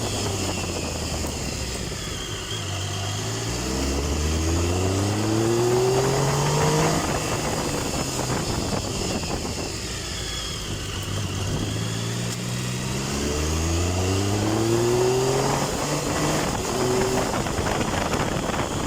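Triumph Tiger 1050's inline-three engine accelerating twice, its pitch rising steadily from about three seconds in and again from about twelve seconds in, with a steady rush of wind and road noise throughout.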